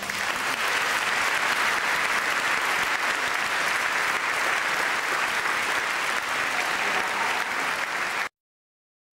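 Audience applauding steadily, then cut off abruptly about eight seconds in, leaving a moment of dead silence.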